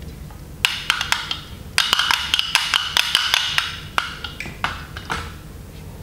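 Plastic toy pellet drum (a baby rattle drum) twisted back and forth, its beads on strings striking the drum faces in a rapid run of sharp clicks with a hollow ring. The clicks start about half a second in, come thickest in the middle, and die out about five seconds in.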